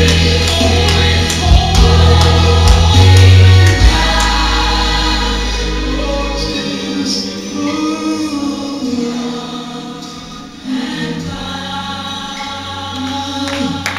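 Gospel choir song playing, with a heavy bass line that drops away about halfway through and comes back near the end.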